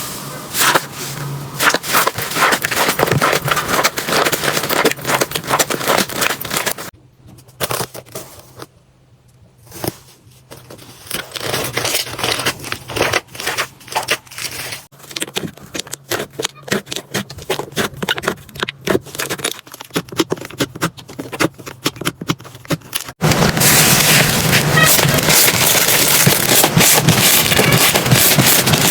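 Slime being squeezed, poked and pressed by hand, with rapid crackling, popping and scraping. It goes quieter for a few seconds about a quarter of the way through, then turns abruptly to a denser, steadier crackle near the end.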